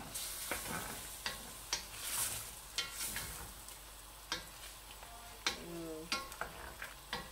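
Chicken pieces and turmeric sizzling in oil in a stainless steel pan, stirred with a wooden spoon that knocks and scrapes against the pan every second or so.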